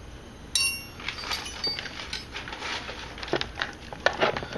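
Small metal hardware being handled: a sharp metallic clink with a brief ring about half a second in, then a run of light clicks, taps and rustling, as when a loose bolt and tools are picked through by hand.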